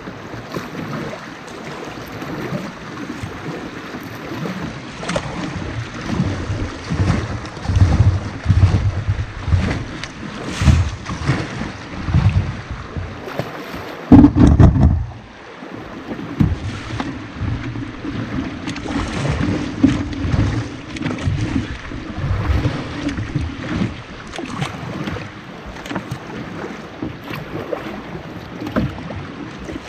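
River water rushing and lapping around a canoe moving through small rapids, with wind buffeting the microphone in uneven gusts. A sudden loud bump about halfway through.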